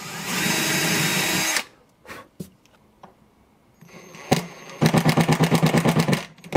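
Ryobi cordless drill driving screws. The motor whines steadily for about a second and a half, a few light clicks follow, then about five seconds in comes a second run of rapid, even pulsing, roughly a dozen beats a second, as a screw goes into a plastic bracket.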